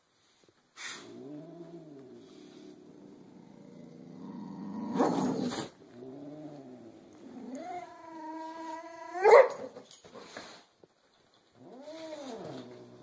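Orange long-haired cat growling and yowling in long drawn-out calls that rise and fall, in protest at a large dog sitting on it. A harsh noisy burst comes about five seconds in, and the loudest yowl ends in a sharp rise about nine seconds in.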